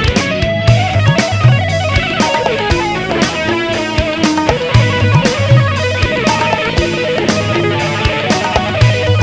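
Instrumental break of a Bengali pop song: electric guitar over bass and drums, with a steady beat.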